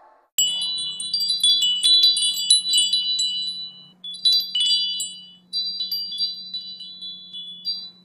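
Bright, high chimes tinkling in three cascades, starting about half a second in, again at about four seconds and again at about five and a half, over a faint low steady hum.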